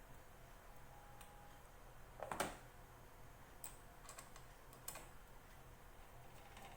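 Faint, scattered clicks and taps from small parts of a plastic bag sealer being handled and fitted back together, the loudest a sharp knock about two and a half seconds in.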